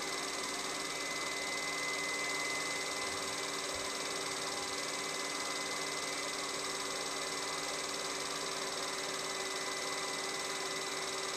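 Steady mechanical whir and hiss of a running film projector, with a constant high tone over it.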